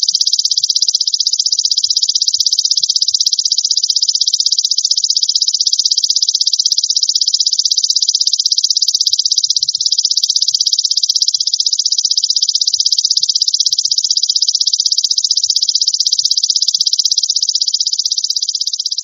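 Belalang emas (golden grasshopper) singing: one continuous, very rapid high-pitched buzzing trill, easing off slightly near the end.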